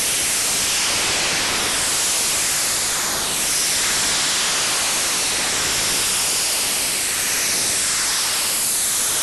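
Shortwave radio receiver playing an unidentified noise-like data transmission: a loud, steady hiss of static, with faint falling sweeps every few seconds.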